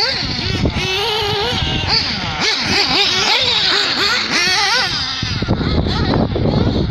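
Small nitro engines of radio-controlled off-road buggies running around a track, their high-pitched note rising and falling again and again as they rev on the straights and back off for corners and jumps.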